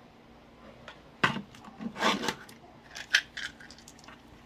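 Handful of dice being picked up and clacking together in the hands, with a few short clicks and clatters about a second in, around two seconds and near three seconds.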